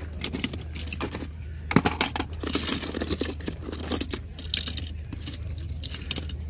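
Die-cast toy cars clattering and clinking against each other and the plastic tub as a hand rummages through the pile, with a sharp clack a little under two seconds in.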